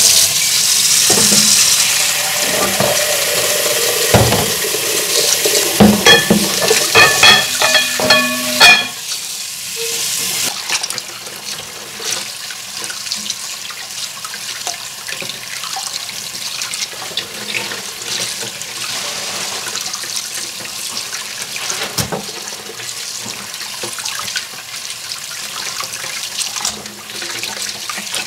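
Kitchen tap running hard into a stainless steel sink, with several sharp clinks that ring briefly about six to nine seconds in. From about ten seconds in the running water is quieter, splashing over raw lamb pieces being rinsed and rubbed by hand.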